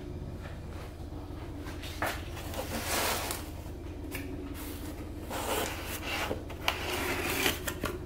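Cardboard pizza box being handled and its lid opened: bursts of cardboard scraping and rustling, with one sharp knock near the end, over a steady low hum.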